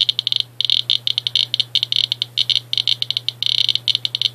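S.E. International Inspector USB Geiger counter chirping on each count: fast, irregular high-pitched clicks, many per second in uneven clusters. It is detecting radiation from uranium-doped Vaseline glass at about 1,100 counts per minute.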